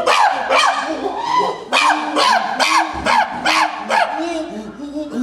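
Common chimpanzees calling: a rapid series of loud, short, high calls, each sliding down in pitch, about two a second, over a string of lower hoots.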